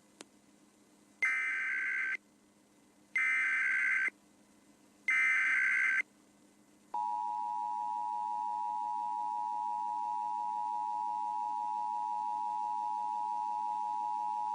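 Emergency Alert System test tones: three one-second bursts of shrill, buzzing SAME header data about two seconds apart, followed about seven seconds in by the steady two-tone attention signal (853 and 960 Hz sounded together).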